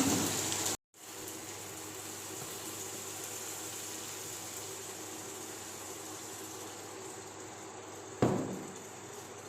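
Chicken curry simmering and sizzling steadily in the pan after a little water has gone in, with a single metal clank about eight seconds in.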